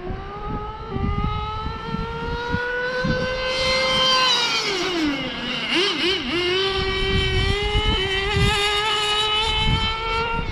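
Kyosho Inferno GT2 RC car's nitro engine running at high revs as the car is opened up. Its pitch climbs slowly, drops sharply about five seconds in, wavers, then climbs back and holds steady.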